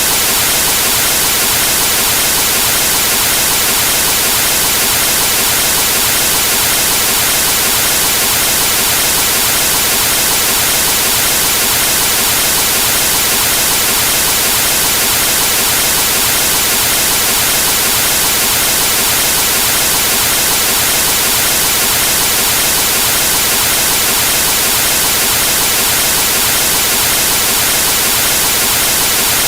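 Television static: the steady hiss of an untuned TV showing snow, loud and unchanging, with most of its energy high up.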